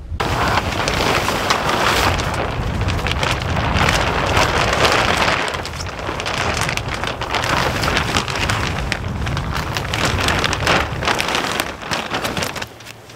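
Large sheet of clear plastic sheeting crackling and rustling as it is pulled and spread over a raised garden bed, over a low rumble. It eases off near the end.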